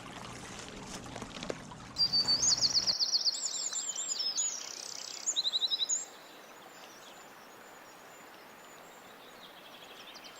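A songbird singing a loud, fast series of high, repeated chirping notes, from about two seconds in until about six seconds in, over a steady background hiss. The lower rush of the creek drops out about three seconds in.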